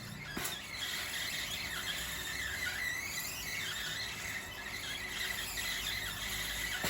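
A continuous high-pitched squeal, wavering slightly in pitch, that starts about half a second in and holds steady.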